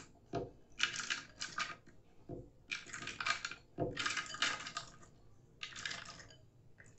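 Peeled almonds poured from a glass bowl into a plastic blender jar, clattering against the jar in several short bursts as they slide out in batches.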